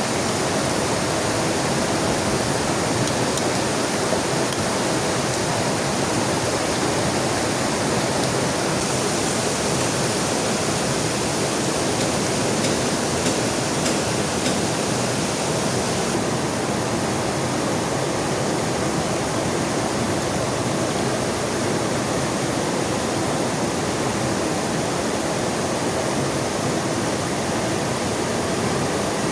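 Heavy rain falling beside a rushing river: a steady, even hiss of water, a little brighter for several seconds around the middle.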